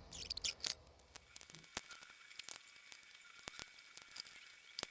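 Faint, sharp clicks and light taps at uneven intervals: small screws being set and driven into a laptop's chassis during reassembly.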